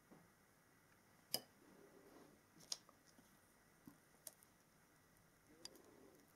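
Near silence with a few faint ticks and light paper rustling as fingers handle and press quilled paper petals together on a sheet of card.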